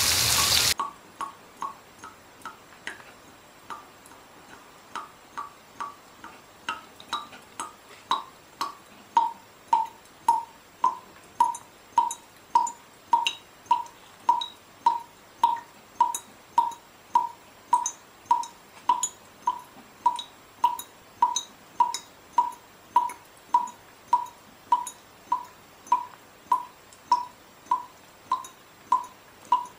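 A brief burst of rushing water cuts off within the first second. Then comes clock-like ticking: short, pitched tocks, sparse and uneven at first, settling about eight seconds in into an even beat of roughly one and a half ticks a second.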